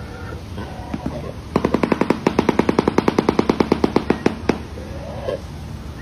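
Shoebill clattering its bill: a rapid, even run of hard clacks, about ten a second, lasting about three seconds and starting a second and a half in.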